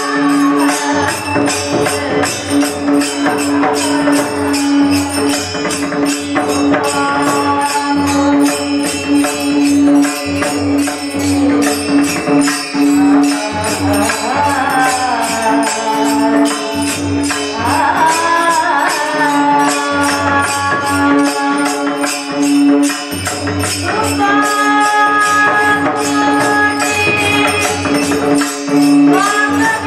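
Marathi Varkari kirtan music: singing over a steady held drone note, with fast, evenly spaced metallic cymbal strokes keeping the beat.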